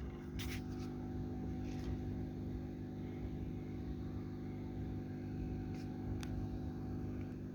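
Hair dryer blowing steadily with a motor whine, heating the phone's back glass to soften its adhesive; a few light clicks over it.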